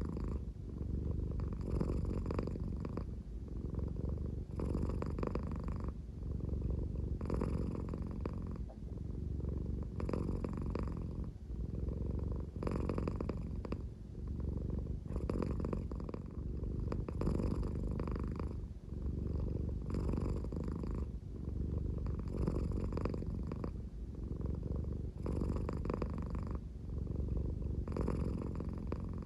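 American Shorthair cat purring at a slow pace, a deep, snore-like rumble. It swells and eases in a steady breathing rhythm, about once every two and a half seconds.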